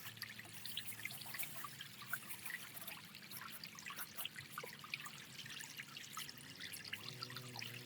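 Small stream of water trickling and dripping through a miniature model dam, with many little splashes. A faint low hum runs under it, and a few steady tones join it about seven seconds in.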